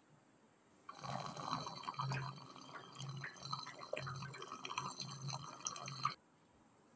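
Water running from the push-lever spigot of a blue plastic water jug into a plastic tub, starting about a second in and cutting off sharply near the end, with a low pulse recurring about twice a second.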